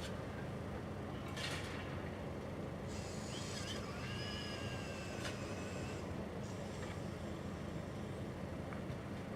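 Construction machinery at a night-time level crossing job: a steady low engine hum, with a short hiss about a second and a half in and a high metallic squeal lasting about two seconds in the middle.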